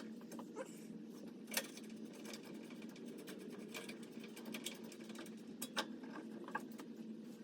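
Scattered sharp clicks and light taps over a steady low hum, with the two loudest clicks about one and a half seconds in and near six seconds in.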